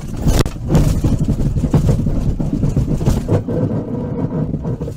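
Police squad car crashing, heard from inside the cabin: a loud rumble with repeated knocks and bangs as the car jolts.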